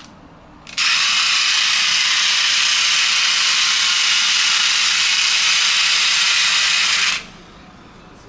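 Toy bulldozer's sound effect played through its small built-in speaker after a button press: a loud, steady mechanical noise that starts suddenly about a second in, runs for about six seconds and cuts off abruptly.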